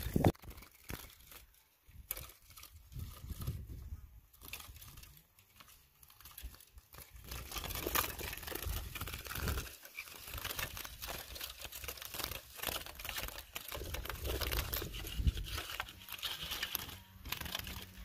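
Irregular rustling and crinkling with scattered small clicks, quieter for the first few seconds and busier from about eight seconds in.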